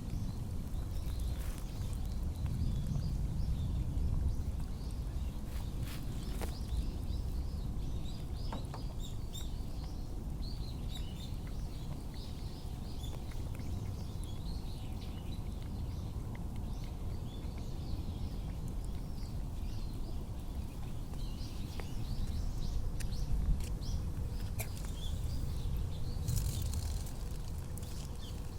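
Small birds chirping on and off over a steady low rumble of outdoor background noise, with a few faint clicks.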